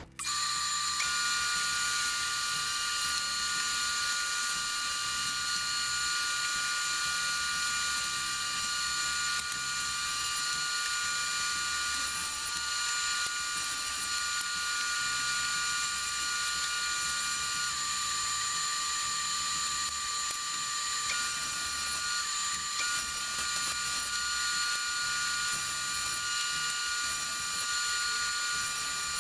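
Table saw running with a dado blade stack, cutting a tenon: a steady mechanical whine with several high steady tones.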